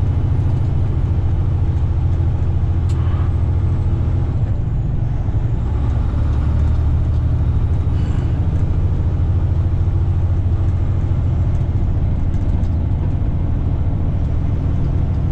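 Heavy-haul semi truck's diesel engine running steadily with a deep, low drone, with a single short click about three seconds in.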